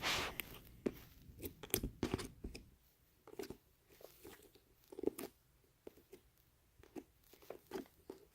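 Sporadic faint clicks, taps and small crackles of hands handling things, with a short rustle at the start and near-silent gaps between.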